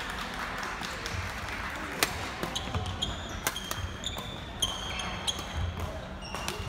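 Badminton rally: sharp racket strikes on the shuttlecock, the loudest about two seconds in, mixed with short high squeaks of court shoes on the hall floor.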